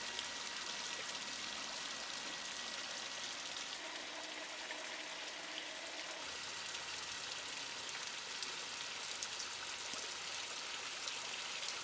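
Shallow stream water running and trickling steadily, an even fine splashing with no break.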